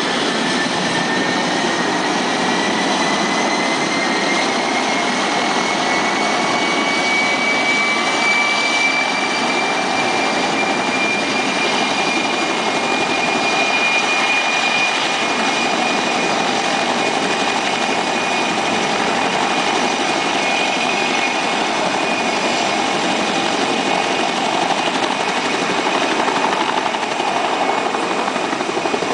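Helicopter turbine engine running, a steady loud noise with a high whine that rises slowly in pitch over the first half and then holds.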